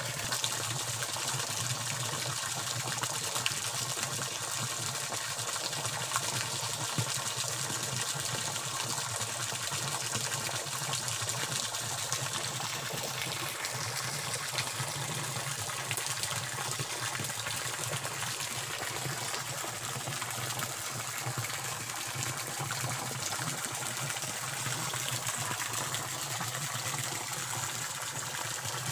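Stream water rushing steadily over a small waterfall.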